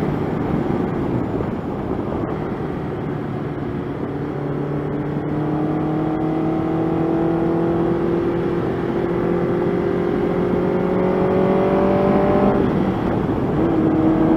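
1985 Honda CB700SC Nighthawk's inline-four engine under way, heard through heavy wind rush. From about four seconds in, its note climbs slowly as the bike gathers speed, then drops near the end and picks up again.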